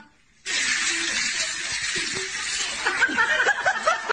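Laughter over a steady hiss that starts about half a second in.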